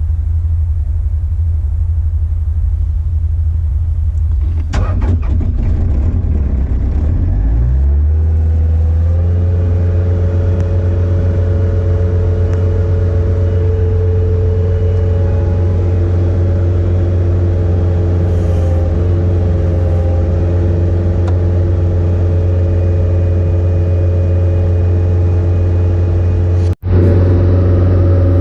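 Skid steer engine running at a low idle, with a knock about five seconds in, then throttled up about eight seconds in and held at a steady higher speed while it warms up. The sound cuts out for an instant near the end.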